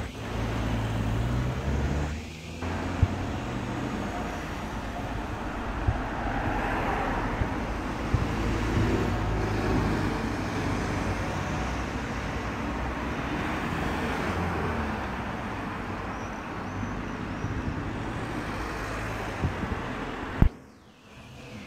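Steady outdoor background noise: distant road traffic with wind rumbling on the microphone. The sound briefly drops out twice, about two seconds in and near the end.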